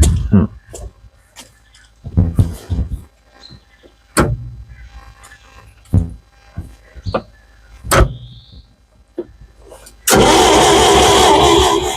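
Old Valmet forklift engine being turned over in brief attempts that don't catch, heard as short sharp bursts about every two seconds. About ten seconds in, loud music cuts in abruptly.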